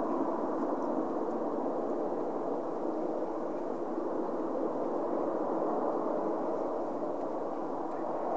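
Airbus A319 airliner's jet engines on final approach: a steady hum with a few faint held tones running through it.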